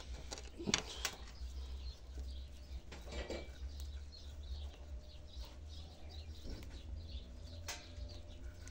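Birds chirping in the background, with a steady low rumble. A few sharp clicks and knocks come from hands working the wired juniper close to the microphone: a cluster about a second in, one around the three-second mark and one near the end.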